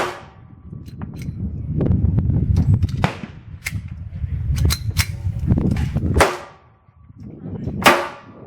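Pistol shots fired at irregular intervals, each cracking sharply and trailing off in echo. The loudest come at the start, about three seconds in, just after six seconds and near the end, with fainter shots between.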